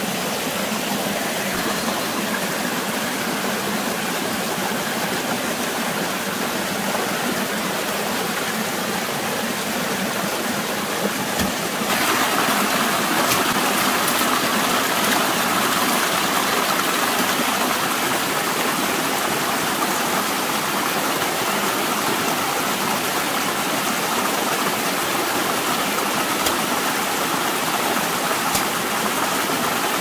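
Stream water rushing steadily; about twelve seconds in it suddenly becomes louder.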